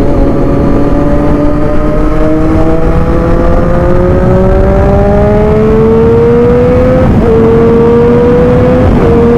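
Motorcycle engine pulling steadily higher in one gear for about seven seconds, then upshifting, with a short drop in pitch about seven and again about nine seconds in, each followed by a fresh rise. Under it runs a steady rush of road and wind noise.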